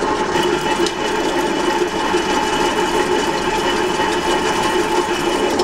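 Bench drill running, its 10.2 mm twist drill cutting into a metal plate lubricated with cutting fluid: a steady machine hum with a higher whine above it.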